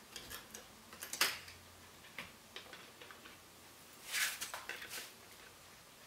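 Faint small clicks and taps of a DDR3 laptop RAM module being lined up and pushed into a MacBook's memory slot. There is a sharper click about a second in and a short flurry of clicks about four seconds in.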